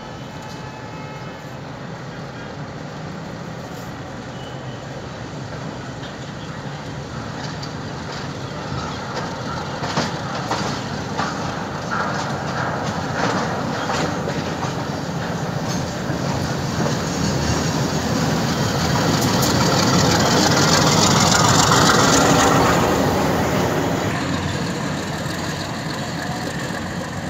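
Diesel-electric shunting locomotive running at low speed with a tank wagon coupled on, its engine and wheels growing steadily louder as it comes up and passes close by, then fading near the end. Midway there is a run of clicks and knocks from the wheels on the track.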